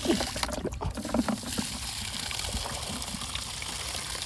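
Water sloshing in a plastic bucket under a hand, then muddy water pouring steadily out of the tipped bucket onto grass as the hand holds back the fish inside: the catch is being drained.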